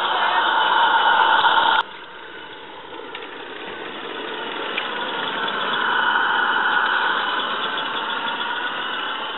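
Small live-steam model locomotive running with a steady hiss of steam while pushing a snowplough through snow. It is loud close by, drops sharply about two seconds in, then grows louder again as the locomotive comes nearer.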